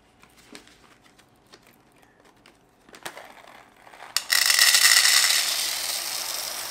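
Medium-roast robusta coffee beans poured from a foil bag into a bowl. A few faint clicks come first, then about four seconds in a loud, dense rattle of beans pouring that slowly softens.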